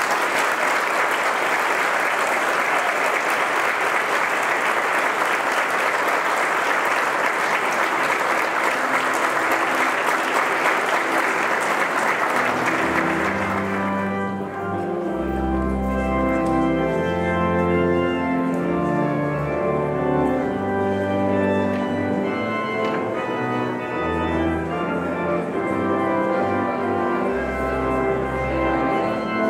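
Congregation applauding. About halfway through the clapping fades and an organ takes over, playing slow sustained chords with deep bass notes as the wedding recessional.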